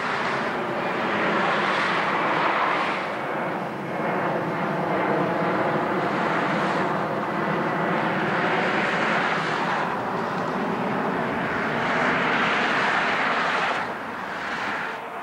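Jet engines of a Boeing 757 airliner passing overhead: a steady loud rushing noise with a faint whine in it, easing slightly near the end.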